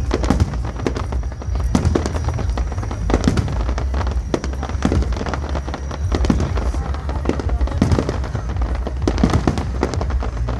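Aerial fireworks display: shells bursting in rapid succession, a continuous barrage of sharp bangs and crackles over a deep, steady rumble.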